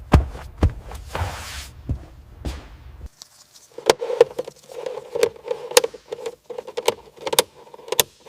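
Irregular sharp clicks and knocks of tools working on a car body, several strikes a second. A low rumble under them stops abruptly about three seconds in, and after that the strikes ring with a metallic tone.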